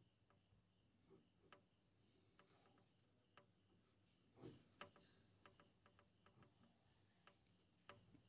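Near silence: a wooden pencil writing on paper, faint scratches and light taps as each stroke is made, over a faint steady high-pitched background tone.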